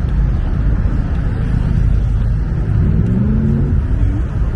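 Steady road-traffic rumble, with a car engine revving up and easing off about two and a half seconds in.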